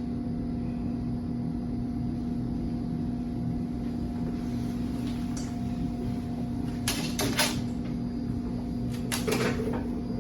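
A steady low hum with a few short knocks: a quick run of about three a little past the middle and another small cluster near the end.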